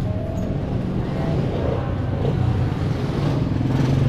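Motorcycle engine of a Philippine tricycle (motorcycle with sidecar) running close by in street traffic, growing louder near the end.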